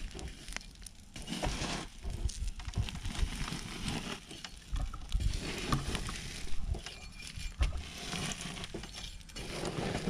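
Hatchet chopping and scraping into a mound of burnt matches: irregular crunches and knocks as the charred crust breaks and loose matchsticks rattle.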